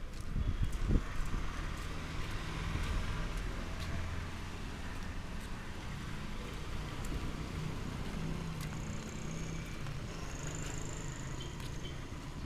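A motor vehicle's engine running as a low, steady hum under street noise, with a couple of low thumps about a second in.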